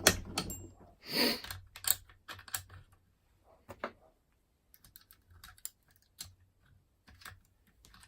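Curtain pick and tension wire working inside an ERA Fortress five-lever mortice lock: small, irregular metal clicks and scrapes as the levers are lifted, busiest in the first few seconds and sparser after.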